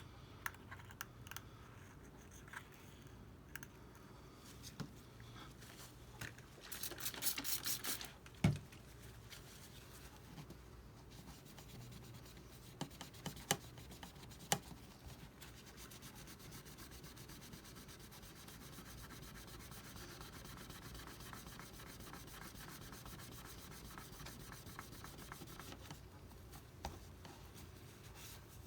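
Old adhesive and glass residue being scraped and rubbed off an iPad's metal frame. The scraping is quiet and uneven, with a denser stretch about seven seconds in and a few sharp clicks from the tool or glass bits.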